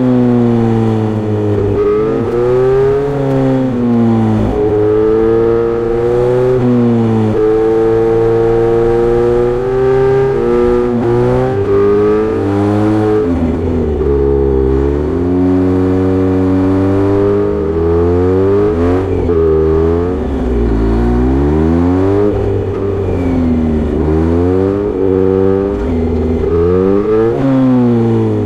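Kawasaki Z900RS inline-four motorcycle engine heard through a short Misty Kintaro aftermarket exhaust with a 70 mm L silencer, being ridden along a twisty road. The engine revs up and eases off over and over, its pitch climbing and dropping every few seconds.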